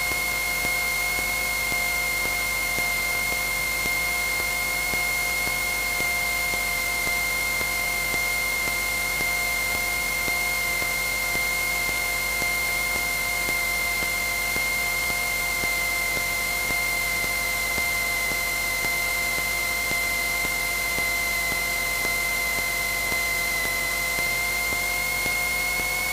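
Cessna 172N's four-cylinder engine and propeller drone heard inside the cabin, a steady hiss with a constant hum of fixed tones. The pitch sags slightly past the middle and comes back up near the end, as power is adjusted on approach.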